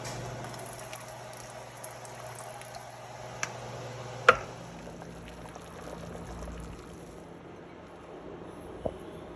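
Broth sloshing and bubbling in a stockpot as red chile sauce is stirred into pozole, over a low steady hum. There are a few light clicks and one sharp knock about four seconds in.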